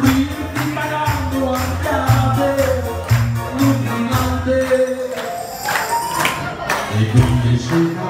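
Upbeat music with a steady beat and a melody, a passage without sung words between verses of an Italian song about pizza.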